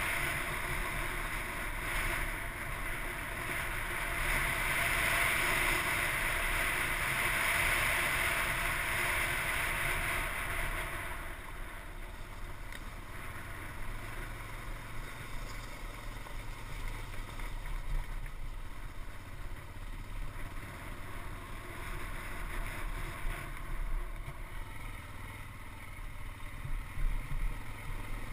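Off-road motorcycle engine running as the bike rolls over a rocky dirt track, with wind and rushing noise on the microphone. The brighter rushing eases about eleven seconds in, and a few sharper knocks come near the end.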